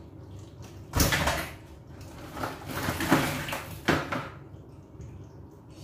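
Blue crabs' shells and claws scraping and clattering against a plastic bucket as they are handled and lifted out. There is a short burst about a second in and a longer run of scraping from about two and a half to four seconds in.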